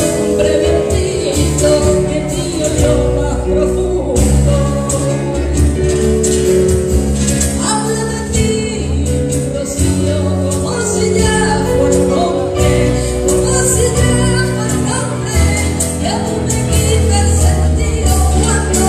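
Live song performance: a woman singing into a microphone, accompanied by acoustic guitar and drums, without a pause.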